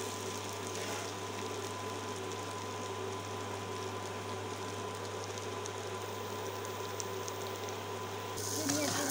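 Steady hum of an induction cooktop running under a wok of grated potato and egg bhaji, with a faint frying sizzle that grows louder near the end.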